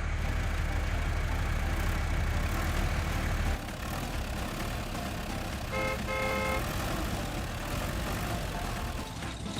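A vehicle engine runs steadily, dropping away about a third of the way in; about halfway through a car horn toots twice, a short toot then a longer one.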